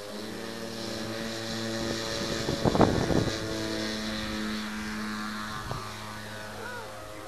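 Engines of a radio-controlled P-38 Lightning scale model running at a steady pitch, with a brief louder burst of noise about three seconds in.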